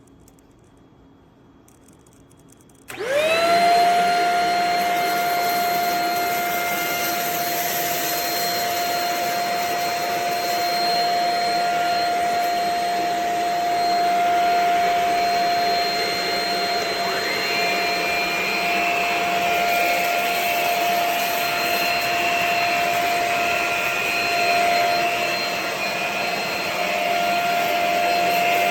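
Shark HV322 Rocket corded stick vacuum switched on about three seconds in, its motor spinning up quickly to a steady whine with a rushing hiss of airflow. Over the second half a second, higher tone joins in and wavers.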